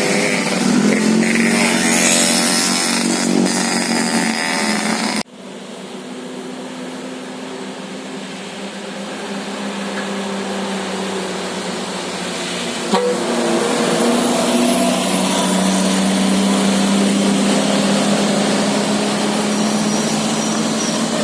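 Road traffic: vehicle engines running, with motorbike-like engines passing. The sound cuts off abruptly about five seconds in, then swells gradually as engines draw nearer, with a short click about thirteen seconds in.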